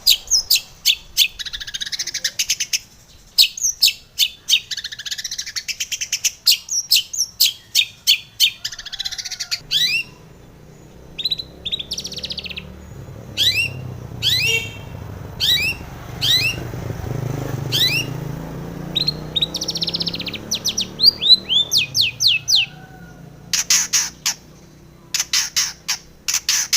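Long-tailed shrike (cendet), a female, singing: rapid sharp notes and scratchy chatter, then spaced whistled notes that sweep steeply downward, with a fast run of clicking notes near the end.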